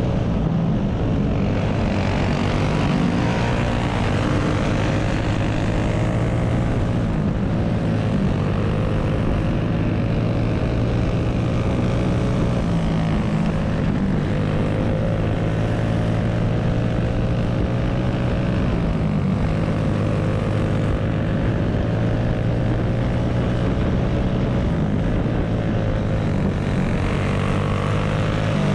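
Clone kart's single-cylinder four-stroke engine running hard, heard from on board the kart, its pitch sagging and climbing again every several seconds as the throttle comes and goes around the dirt oval.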